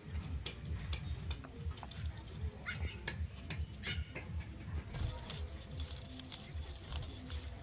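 Scales being scraped off a whole katla fish against the curved iron blade of a boti: an uneven run of quick scraping clicks.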